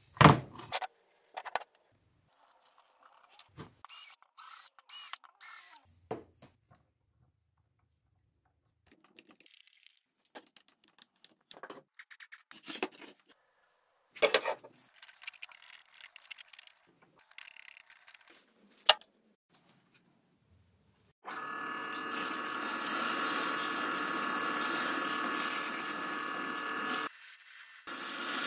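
Scattered knocks, clatter and scrapes of parts being handled on a workbench. About two-thirds of the way in, a drill press starts spinning a sanding disc in its chuck and runs steadily, with the rasp of a wooden edge being sanded against the disc. The sound dips briefly near the end and then picks up again.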